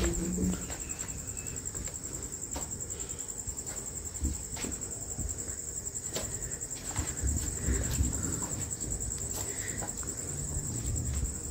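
Crickets trilling in one steady, high-pitched note, with scattered faint knocks and scuffs beneath it.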